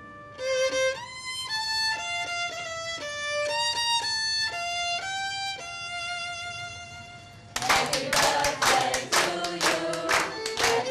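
Background music with a violin-like lead melody. About seven and a half seconds in, a louder passage comes in, with sharp rhythmic strokes several times a second.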